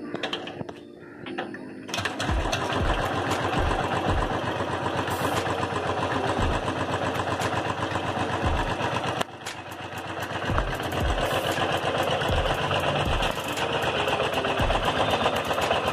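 Royal Enfield Thunderbird 500's air-cooled single-cylinder engine starting about two seconds in on the freshly installed battery, then idling steadily with an uneven low thump.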